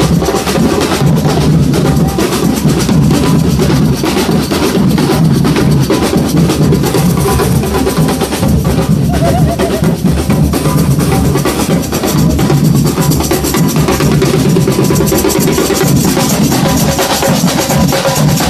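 Samba drum band playing loud, driving percussion, with deep bass drums (surdos) under dense snares and other drums.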